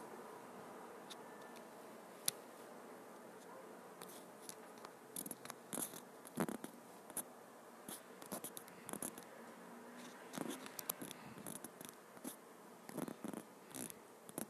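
Faint hiss with a single sharp tick about two seconds in, then many irregular light clicks and taps: fingertips tapping and swiping on a phone's touchscreen, picked up by the phone's own microphone.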